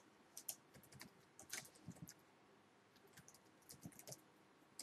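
Faint computer keyboard typing: scattered keystrokes in short runs, with a pause of about a second midway.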